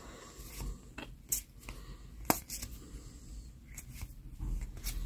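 Pokémon trading cards being flicked through by hand, each card slid from the front of the stack to the back, giving a few short card snaps and rustles.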